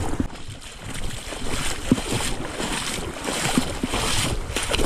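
River water splashing and sloshing in short, uneven strokes as someone wades through it.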